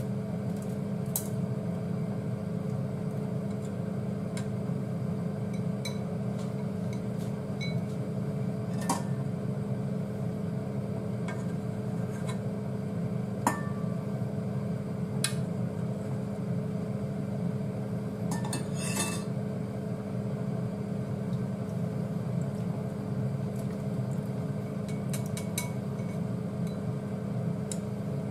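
Long cooking chopsticks clinking now and then against a ceramic bowl, a wire-mesh strainer and a metal pot, with a brief rattle about nineteen seconds in. Under it runs a steady low mechanical hum.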